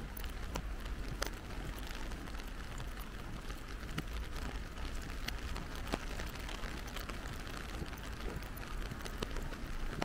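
Steady rain, with scattered sharp ticks of drops landing close by.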